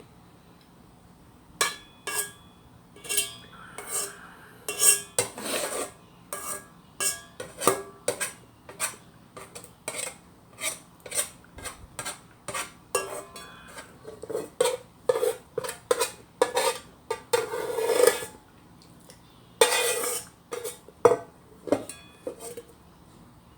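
A spoon scraping and clinking against the inner pot of a rice cooker as rice is scooped out: many sharp clicks and short scrapes, about one or two a second, with a few longer scrapes along the pot.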